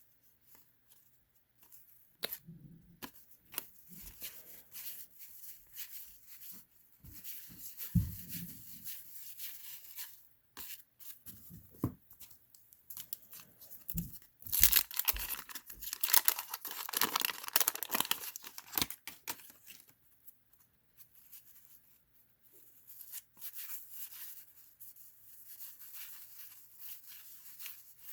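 A card-pack wrapper being torn open and crinkled, loudest and longest from about halfway through for some five seconds. Around it come quieter handling sounds of cards and packaging, with a few soft knocks on the table.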